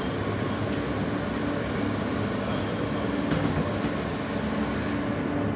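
New York City subway train on the R line moving slowly along a station platform, heard from inside the car: a steady hum and rumble with a held low tone.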